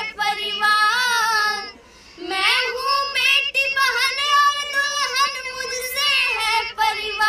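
A high voice singing a slow Hindi song in long, wavering phrases over a steady held drone note; the singing breaks off briefly about two seconds in.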